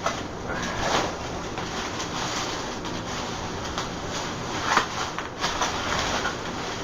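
Packaging rustling and crinkling as the iMac is unpacked from its box and packing peanuts, with a few louder swells over a steady hiss.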